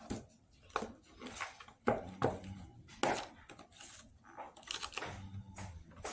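Clear plastic clamshell food container being handled and opened, crackling and snapping in a run of short sharp clicks.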